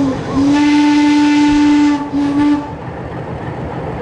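Leslie RS5TRO air horn on an Alco C420 diesel locomotive blowing a long blast, then a short one. Once the horn stops, a steady rumble is left.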